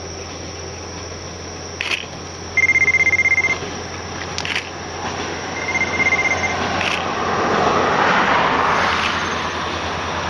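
Distant single-car diesel railcar running along a riverside track, its engine and wheel noise swelling about halfway in. A short, high trill sounds twice, about two and a half and six seconds in, along with a few sharp clicks.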